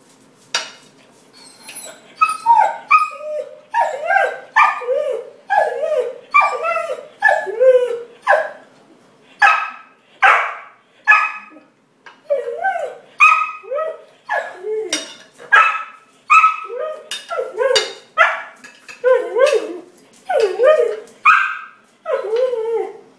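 Rough collie barking and yelping over and over at the table, begging for food. The calls come about one or two a second, many bending up and down in pitch.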